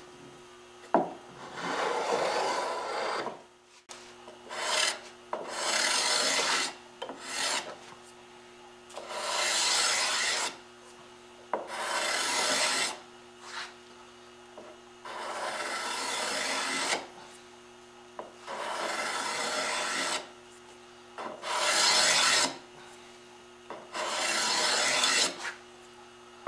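Hand scraper drawn over a curly maple molding profile, about ten scraping strokes of one to two seconds each with short pauses between, smoothing the surface.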